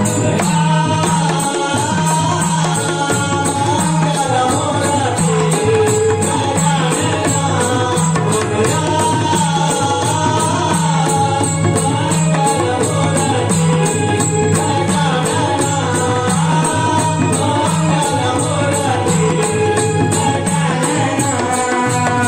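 A voice singing a wavering melody over steady rhythmic dholki and mridang drumming.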